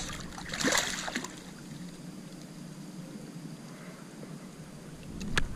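A hooked redfish thrashing and splashing at the water's surface beside a small boat: one loud burst of splashing about a second in, then quieter water. There is a sharp click near the end.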